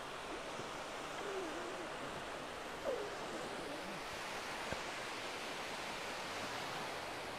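Sea surf washing onto a sandy beach: a steady rushing hiss of small breaking waves.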